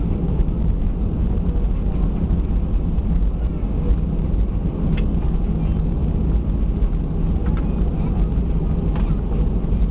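Cabin noise inside an Airbus A320 around landing: a steady, loud low rumble of the jet engines and airflow, with a sharp rattle about five seconds in and another about nine seconds in.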